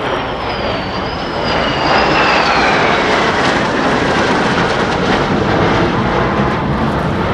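Jet engines of an F-16 and an F-86 Sabre flying past together in formation. A loud, steady jet roar swells about two seconds in, with a whine that falls in pitch as the pair goes by.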